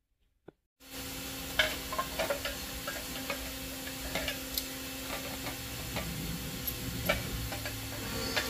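About a second of silence, then irregular clicks and light metallic taps from clamps being set and tightened on an aluminum tube, over a steady hum.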